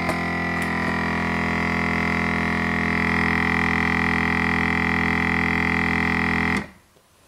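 Vacuum sealer's pump motor running steadily with a loud drone, drawing the air out of the bag, then cutting off suddenly near the end as the cycle finishes.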